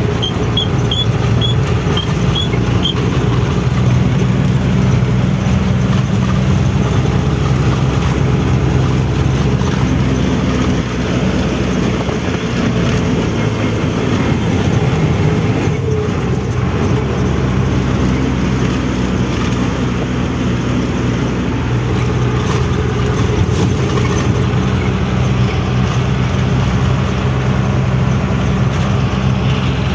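Heavy 12-wheel truck's diesel engine running steadily under way, with road noise.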